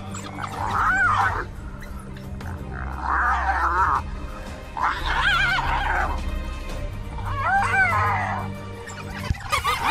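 Bursts of high, warbling animal cries every two seconds or so, from African wild dogs mobbing a hyena, over a steady low hum.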